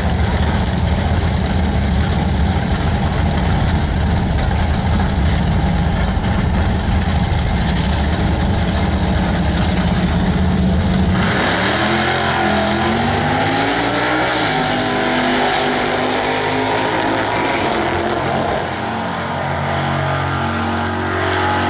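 Two drag-racing cars, a 1948 Ford Anglia panel truck and its opponent, idling loudly with a heavy low rumble at the starting line. About halfway through they launch, and the engine notes climb in pitch through gear changes as the cars run away down the track.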